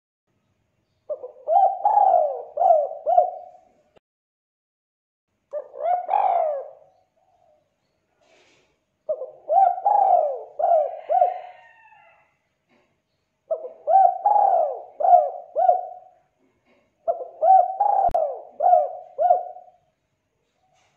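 Spotted dove cooing: five phrases about four seconds apart, most of them four or five quick mellow coos, one a single longer coo.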